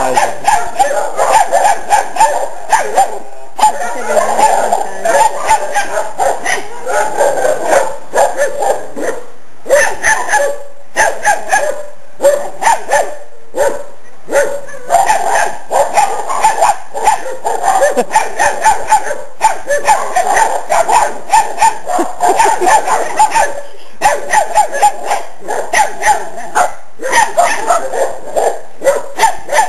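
Several puppies barking and yapping over and over, their high, overlapping barks nearly continuous with a few brief pauses. They are barking at a chicken they are too scared to go near.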